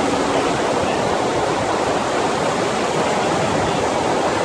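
Steady rush of water pumped across a FlowRider sheet-wave surf machine.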